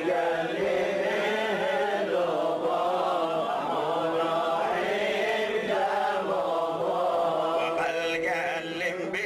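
A man chanting a Jewish liturgical melody into a hand microphone in long, wavering, ornamented notes.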